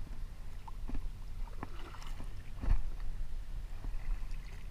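Kayak on open water: a steady low rumble of water and wind against the boat, with a few light knocks of gear or paddle on the hull, the loudest about two and a half seconds in.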